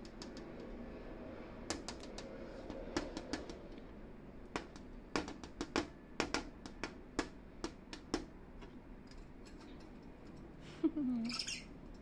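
A lovebird's beak pecking and nipping at a finger and its clear plastic cage: a run of sharp, irregular clicks, about a dozen over several seconds. A brief falling voice sound comes near the end.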